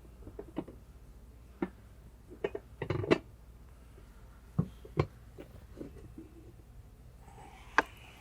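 Scattered light clicks and knocks from a fire extinguisher bottle being shifted and adjusted in its mounting bracket. The sharpest knocks come about three seconds in and near the end.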